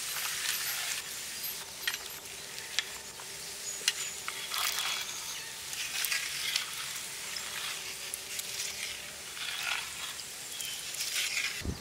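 Pot of boiling water with soya chunks bubbling as basmati rice is stirred in with a ladle, the ladle scraping and knocking now and then against the metal pot.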